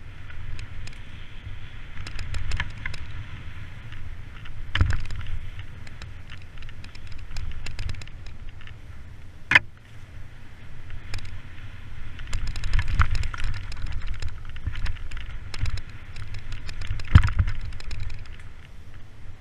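Mountain bike descending a dirt woodland trail at speed: a steady rumble of tyres and wind on the microphone, with the bike rattling in quick runs of clicks. Heavier knocks over bumps come about five seconds in, near ten seconds, and loudest near the end.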